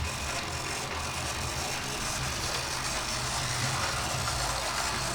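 Oxford Rail Class 415 Adams Radial 4-4-2T model locomotive running on its track: a steady whir from its small electric motor with wheel-on-rail noise. Its motor had been noisy and weak and has since been lubricated and run in.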